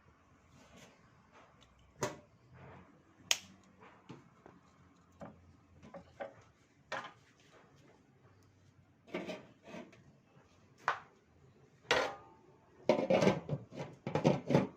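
Kitchen dishes, pans and utensils clinking and knocking: scattered single clicks, then a quicker, louder run of clatter near the end.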